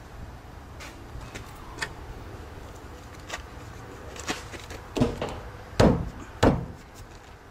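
A few light taps and clicks, then three heavy thumps a little over half a second apart near the end, as a sheet-metal rear fender is pressed and knocked into place against a pickup's body.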